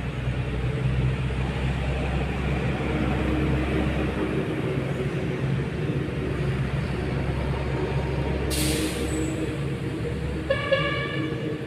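Motor vehicle engine running steadily, a low rumble with a steady hum. About eight seconds in there is a short burst of hiss, and near the end a brief horn toot.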